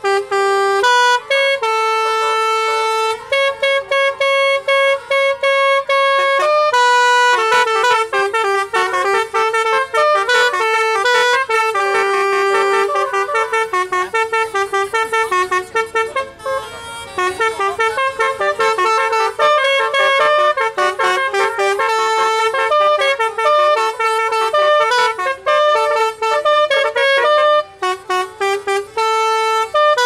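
Tour bus "telolet" horn, a set of roof-mounted horn trumpets, playing a loud, fast tune of stepped notes, with a few short breaks between phrases.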